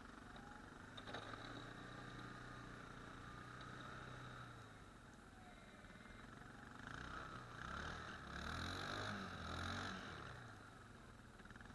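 An ATV engine running, heard faintly, revving up from about seven seconds in and dropping back near ten seconds.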